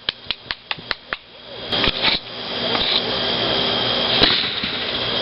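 Consumer fireworks going off: a quick string of sharp pops, about five a second, then from about two seconds in a steady hissing spray that builds in loudness, with crackle in it.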